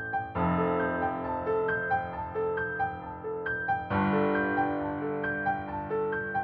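Background music led by piano: a gentle repeating figure of short notes over held chords that change about half a second in and again about four seconds in.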